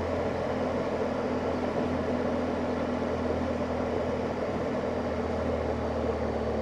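BMW motorcycle engine running steadily at low revs, with a small shift in its note about two seconds in.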